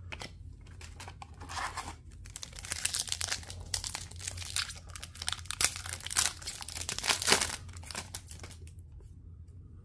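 Foil wrapper of a hockey trading-card pack crinkling and tearing as it is opened by hand, a dense crackle that starts about a second and a half in and dies down near the end.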